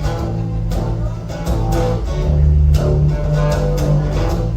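Live band playing an instrumental passage with no vocals: guitar over a low bass line and a steady beat.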